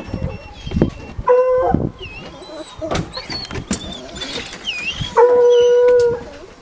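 Hunting hounds howling: a short howl about a second and a half in, then a longer, steady, held howl about five seconds in. Songbirds sing lightly in the background.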